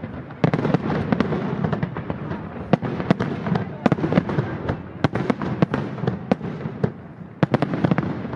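Aerial fireworks display: a dense barrage of shells bursting, many sharp cracks and bangs over a continuous rumble, easing off suddenly at the very end.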